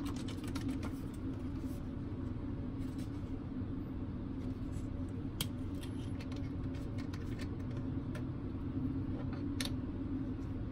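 A small paper carton of coffee drink handled by hand: shaken, with light clicks and rustles near the start, then its plastic screw cap twisted open, with sharp single clicks about five and nine seconds in. A steady low hum of room noise runs underneath.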